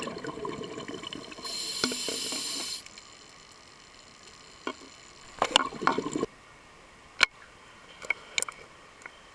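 Scuba diver's exhaled bubbles from the regulator burbling past the underwater camera housing, loudest in a burst ending about three seconds in; after that it is quieter, with scattered sharp clicks and pops, a cluster of them about halfway through and one loud click about seven seconds in.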